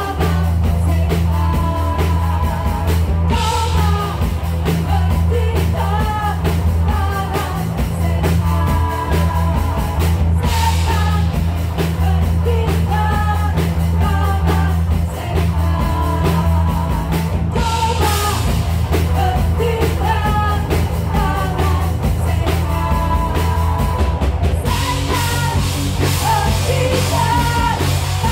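Live rock band playing loudly: a male and a female singer singing over electric guitar, bass guitar and drum kit, with a heavy, steady bass. Cymbal crashes come a few times, and the drums and cymbals get busier near the end.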